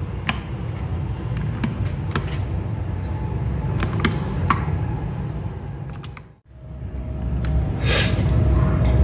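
Rubbing and handling noise from a mechanical keyboard being worked on by hand, with scattered light plastic clicks as keycaps are pushed onto the switches.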